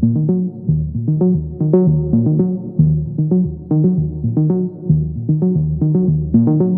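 Background music: synthesizer and keyboard notes over a steady beat.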